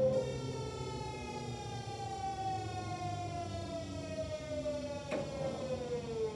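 Kintetsu 1026 series train's VVVF inverter whining under regenerative braking, a stack of tones falling steadily in pitch as the train slows. Mixed into the normal inverter sound is a raspy, growling noise, which the owner takes for a deteriorating, faulty inverter. A sharp click about five seconds in.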